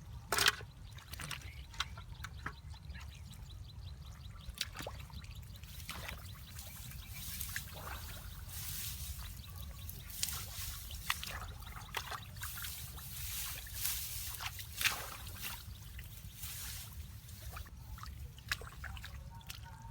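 Water splashing and trickling in short, irregular bursts, over a low steady rumble.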